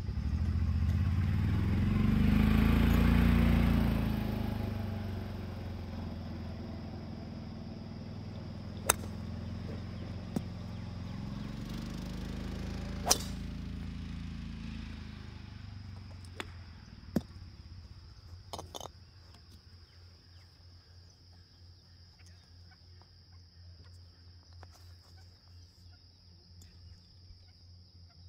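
Golf driver striking a ball off the tee with a sharp crack about thirteen seconds in. Under it a low engine drone swells during the first few seconds, its pitch sweeping as it passes, and fades out by about sixteen seconds; a few fainter clicks follow, over a steady high whine.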